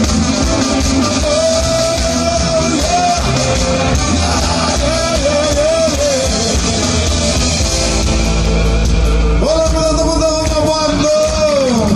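Live ska band playing through the stage PA: a singer over electric guitars, drums and a horn section with trumpet and saxophone, with sustained held melody phrases.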